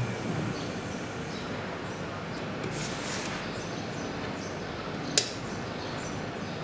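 Electric nail drill running with a steady, even hiss-like whir, and one sharp click about five seconds in.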